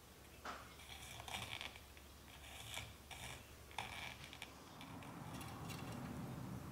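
Bonsai training wire scraping as it is pulled through the fingers and wound around a young maple branch, in about four short rasping strokes; from about two-thirds in, a softer, duller handling rustle.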